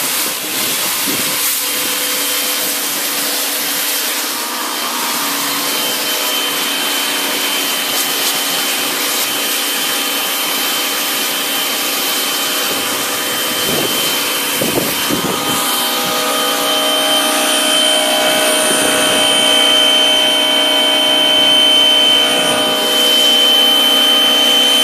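Freshly rebuilt small pressure washer running and spraying through a car-wash nozzle meant for a bigger pump: a steady pump-and-motor whine over the hiss of the water jet. The whine grows louder and more tonal past the middle.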